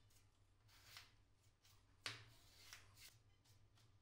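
Faint scraping and light clicks of a small wooden stick spreading dark paste into the seam between a plywood panel and a wooden frame. The sharpest click comes about two seconds in, with a few softer scrapes around it.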